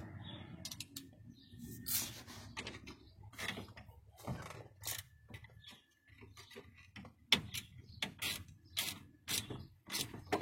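Irregular clicks, knocks and clatter of tools and small hardware being handled during work on a truck's dash-mounted shifter and shift cable.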